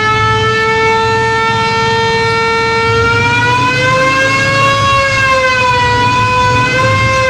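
Electronic siren horn on a motorcycle that runs on a 4700 µF 35 V capacitor instead of a battery, sounding one long, loud, steady wail. Its pitch climbs a little and wavers around the middle as the throttle is opened. The engine runs underneath. The horn works at full strength without a battery.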